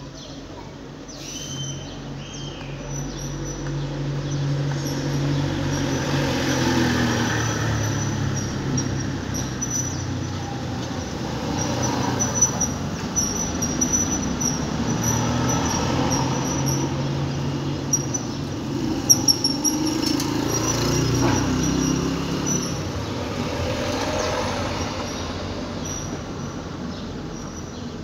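A motor engine running, growing louder over the first few seconds, then swelling and easing several times before dropping back near the end.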